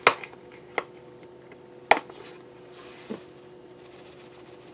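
A few sharp clicks and taps, about a second apart, as dried parsley flakes are shaken and tapped out of a spice container into melted garlic butter. A faint steady hum runs underneath.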